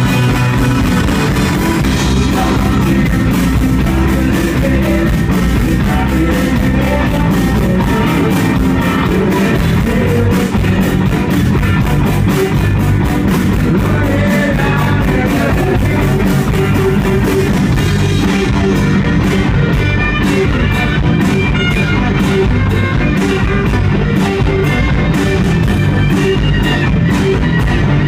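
Live rock band playing: electric guitars and bass over a drum kit keeping a steady beat, loud and continuous.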